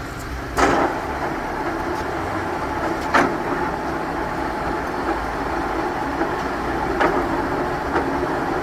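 Ryazan 1MH63H-3 engine lathe running under power: a steady gear-train whir, with a few sharp clicks or knocks.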